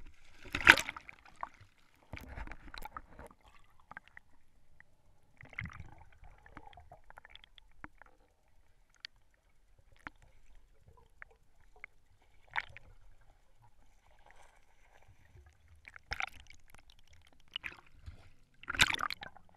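Water splashing and gurgling around a diver's camera as it goes under and breaks the surface, in a few short bursts. The loudest splash comes about half a second in and another near the end, with faint muffled water noise between.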